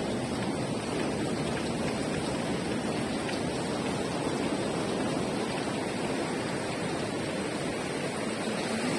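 Steady, unbroken rushing of sea surf.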